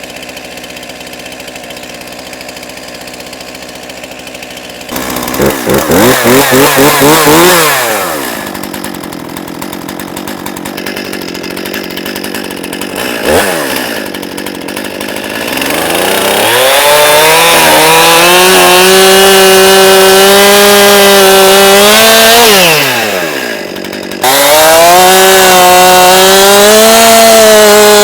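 Stihl MS 261 C-M two-stroke chainsaw idling while warming up, then revving once and dropping back. From about the middle it runs at high revs in long stretches with a wavering pitch, as when cutting logs, dipping briefly near the end before going back to full throttle.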